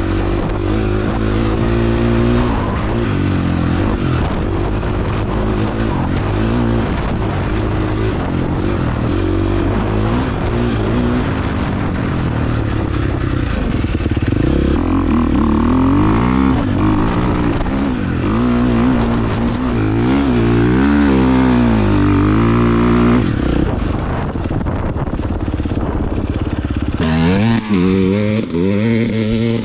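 Dirt bike engine heard from on the bike, revving up and down over and over as the rider works the throttle and gears, its pitch rising and falling every second or two. Near the end the revs climb quickly several times, with wind noise on the microphone.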